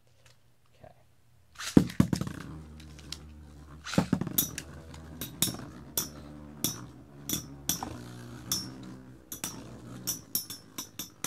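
Two Beyblade Metal Fight tops, Rock Aries ED145B and Poison Serpent SW145SD, launched into a plastic BB-10 stadium with a loud clatter about two seconds in. They then spin with a steady whir, striking each other in sharp clicks one to three times a second.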